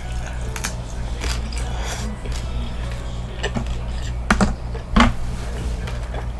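Crisp hard taco shell crunching as it is bitten and chewed close to the microphone: a scattering of sharp cracks and clicks, the loudest two a little after four seconds in and at five seconds.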